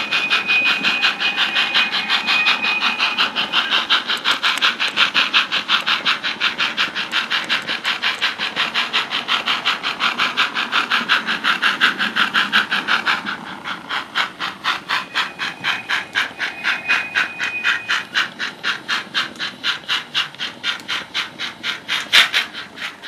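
On30 model Forney steam locomotive with a sound decoder, giving off steam chuffs at a rapid, even beat that turn softer about halfway through. A thin high steady tone sounds over the first few seconds.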